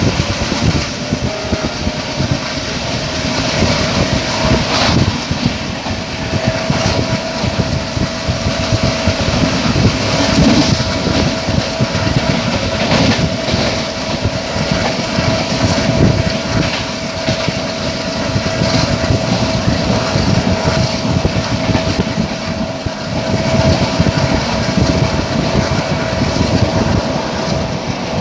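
Passenger train running at speed, heard from an open coach window: steady rumble of wheels on rail and rushing air, with a thin steady whine and now and then a sharper knock from the track.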